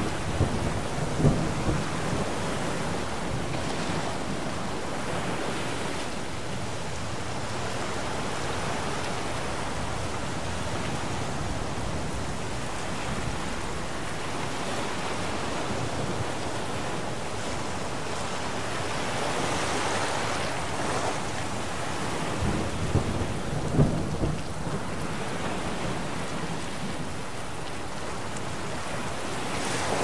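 Thunderstorm: steady heavy rain, with thunder rumbling near the start and again about three quarters of the way through.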